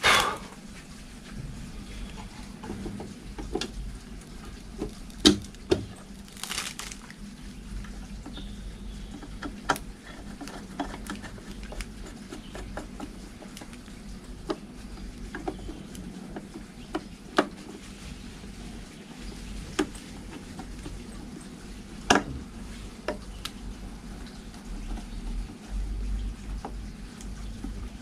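Scattered clicks and knocks of a circuit-breaker board's cover being fitted back on and screwed down with a hand screwdriver, the loudest knock right at the start, over a steady low hum.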